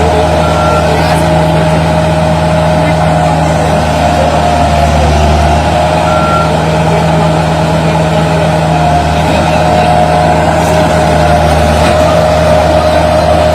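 Bulldozer's diesel engine running steadily under load, with a continuous high steady tone sounding over it.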